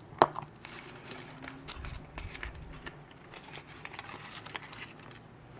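Foil wrapper crinkling and a hollow milk-chocolate Kinder Surprise egg cracking open, with one sharp snap about a quarter second in. Soft crinkles and small clicks follow as the plastic toy capsule is handled.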